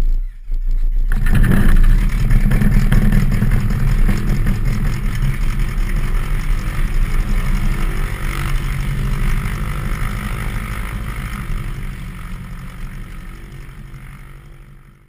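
Cessna 172RG Cutlass's four-cylinder Lycoming O-360 engine starting: a short burst, then it catches about a second in and runs steadily, heard from a camera on the tail, fading gradually toward the end.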